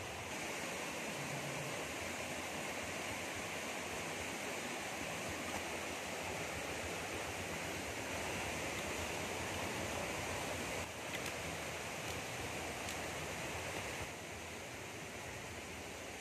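Shallow river running over rocks: a steady rushing wash of water, dropping a little in level about fourteen seconds in.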